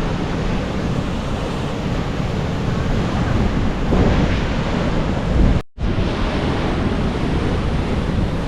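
Ocean surf breaking steadily with wind buffeting the microphone. The sound drops out suddenly for an instant about two-thirds of the way in.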